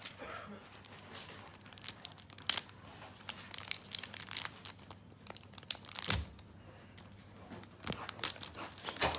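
Plastic toy packaging being crinkled and torn open by hand in intermittent crackles and rips, with a soft thump about six seconds in.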